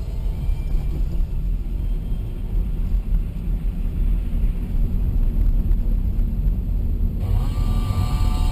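Steady low rumble of a car driving, engine and road noise picked up by a dashcam inside the car. A few steady tones come in near the end.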